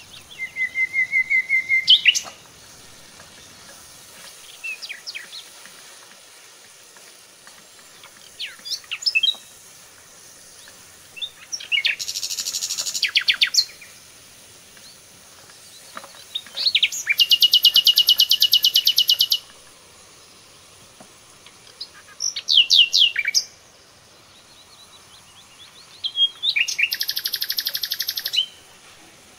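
A songbird singing: loud phrases of fast trills and rapidly repeated notes, each one to three seconds long, coming a few seconds apart.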